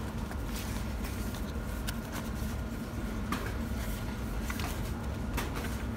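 Steady low hum of indoor shop background, with scattered light clicks and taps from handling packets on a shelf.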